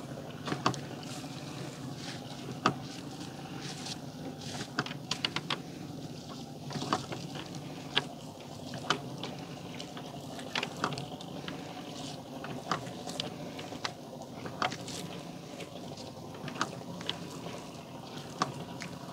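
Steady low hum of a small fishing boat on the river, with scattered sharp knocks and clicks, several a few seconds apart, from work on board.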